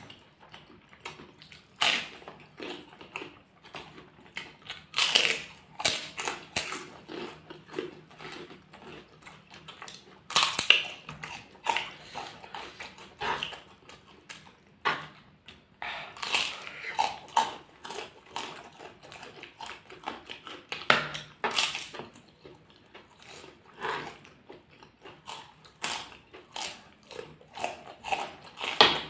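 Close-up eating sounds: crisp kerupuk crackers bitten and crunched, with chewing of gado-gado in between. Loud crunches come irregularly, every few seconds.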